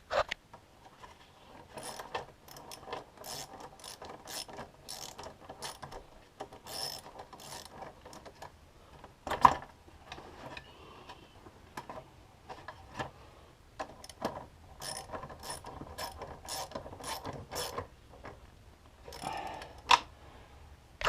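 10 mm socket ratchet clicking in repeated runs as it turns the cover bolts, with one louder clank about halfway through.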